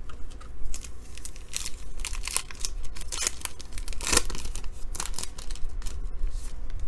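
Foil wrapper of a basketball trading-card pack crinkling and tearing as it is ripped open by hand: a run of sharp crackles, loudest about four seconds in.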